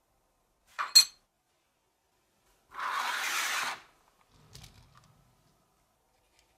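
Small metal workpieces handled on a work mat: a sharp metallic click about a second in, a rubbing rustle lasting about a second near the middle, then a few faint light taps.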